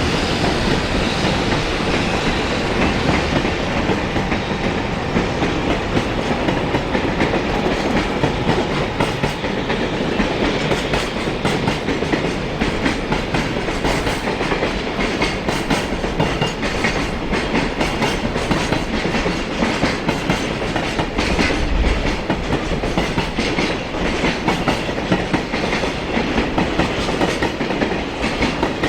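A container freight train's wagons rolling past at speed, the wheels clacking steadily over the rail joints.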